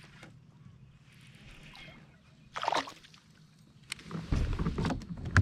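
Water splashing about halfway through, then knocks and thumps against the plastic kayak hull as a bass is brought aboard.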